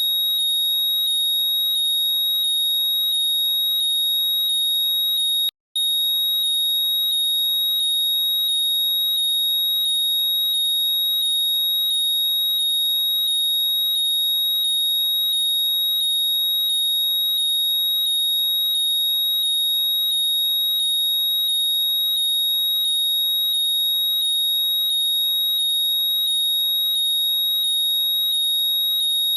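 Apple AirPods Find My locating sound played loud: a high-pitched, alarm-like tone with rapid falling chirps repeating more than once a second. It cuts out for an instant about five and a half seconds in.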